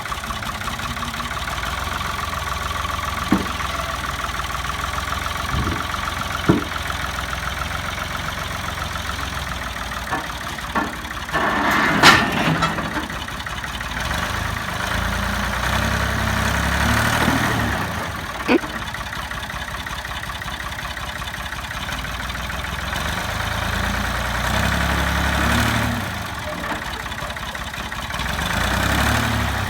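Backhoe engine running, with the revs rising and falling several times. Short sharp metal clanks come every few seconds, and the loudest bang is about twelve seconds in.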